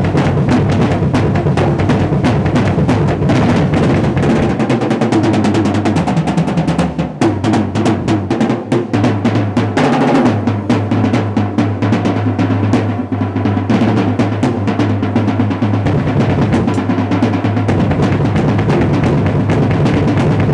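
Acoustic drum kit played in a fast, loud solo: rapid strokes around the snare and toms with cymbal hits, over the bass drum. The bass drum runs in a dense, steady stream in the first few seconds and again over the last few seconds, and is sparser in the middle.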